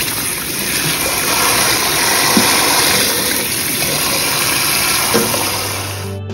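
Tap water running hard into a kitchen sink, a steady rush that cuts off suddenly near the end.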